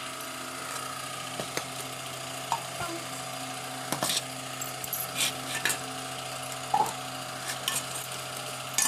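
Pieces of raw green mango, chilies and onion being tipped into a steel mixer-grinder jar, giving scattered short knocks and clinks. A steady low hum runs underneath.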